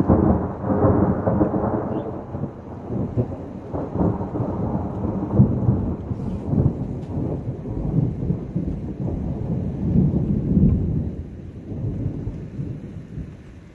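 Thunder: a sudden loud crack, then a long low rolling rumble that swells several times and fades away near the end.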